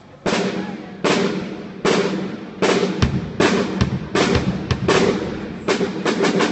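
Drum kit being sound-checked: single hits of snare and bass drum about every 0.8 s, each ringing out, then a quick run of strikes near the end.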